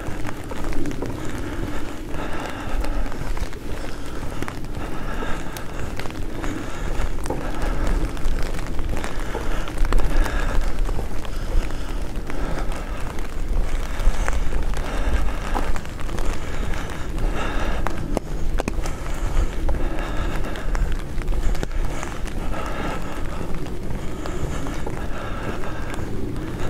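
Outdoor street ambience heard while walking, with a steady low rumble of wind on the microphone and faint, recurring higher tones.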